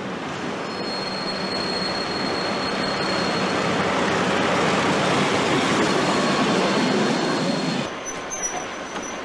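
Diesel shunting locomotive of the DB V60 type (Class 360) running as it hauls goods wagons past, its engine hum joined by a thin, steady high wheel squeal, growing louder as it nears. It cuts off abruptly about eight seconds in.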